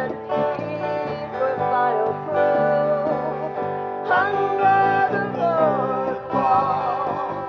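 Live guitar music with singing: an acoustic guitar and a second guitar play steady low notes under a sung melody.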